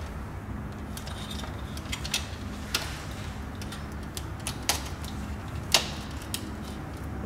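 Scattered small clicks and knocks of earth wires being handled and pushed into a plastic earth terminal bar in a breaker panel, over a steady low hum. The sharpest click comes near six seconds in.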